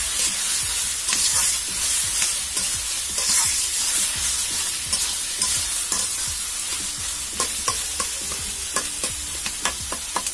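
Chopped bottle gourd sizzling in hot oil in a karai while a spatula stirs it, scraping and clicking against the pan, the clicks thicker in the second half. The gourd is being fried down with turmeric and spices (koshano).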